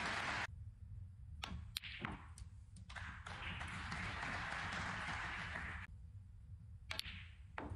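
Sharp clicks of snooker balls and cue: two about a second and a half in and another near the end, between stretches of steady hiss.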